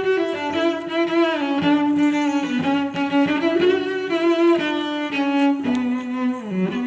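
Background music: a bowed-string melody of held notes stepping up and down in pitch.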